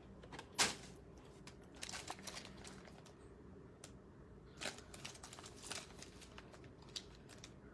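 Faint crinkling and rustling as foil trading-card packs and a cardboard blaster box are handled, with a few small clicks and taps scattered through, the clearest about half a second in.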